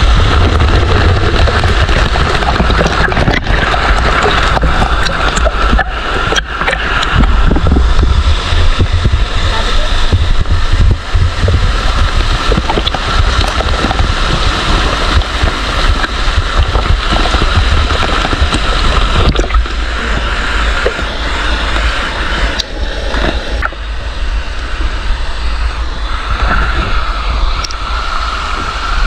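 Small waterfall pouring over a rock into a pool, close to the microphone: loud, steady rushing and splashing water.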